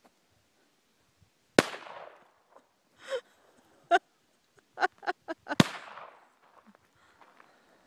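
.22 pistol firing two shots about four seconds apart, each sharp crack followed by a short echoing tail. A few short pitched sounds come between the shots.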